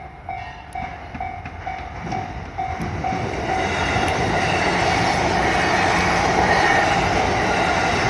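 Level-crossing warning bell dinging about twice a second as a JR Saikyo Line E233-series electric train approaches and passes close by. The train's rumble builds over the first few seconds and then runs loud and steady, drowning out the bell.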